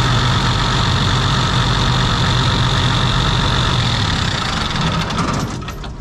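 Diesel engine of a farm machine idling steadily, heard up close at the engine bay, with a constant low hum. Near the end the sound drops sharply to a much lower level.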